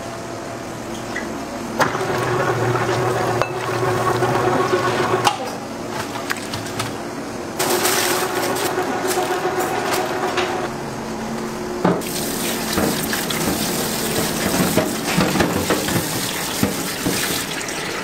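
Steady rushing noise like running or pouring water over a low machine hum, shifting abruptly in level and texture about two, eight and twelve seconds in.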